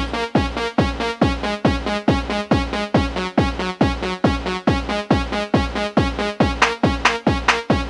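Electronic dance music in the Valencian 'sonido de Valencia' (bakalao) style: a steady four-on-the-floor kick drum, a little over two beats a second, under a repeating synth pattern, with rising synth sweeps coming in near the end.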